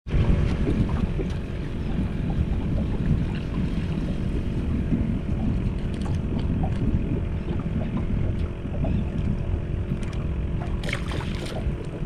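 Wind buffeting the microphone in a small open boat, over a faint steady hum. Near the end a hooked small redfish splashes at the surface as it is reeled up to the boat.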